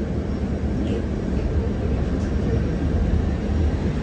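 Steady low rumble of a KAMAZ-6282 electric bus running along the road, heard from inside its cabin.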